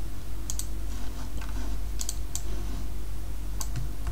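A handful of scattered, sharp clicks from a computer keyboard and mouse, over a steady low hum.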